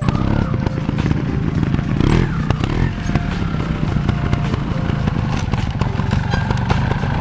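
Trials motorcycle engine running close by with a rapid low firing pulse, revved up and back down about two seconds in.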